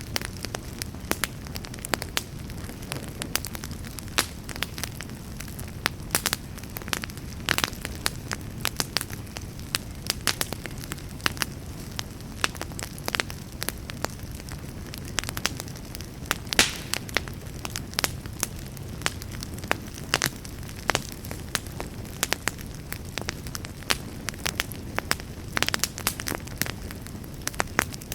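Wood fire burning in a fireplace: a steady low rumble of flames with frequent irregular crackles and occasional louder pops.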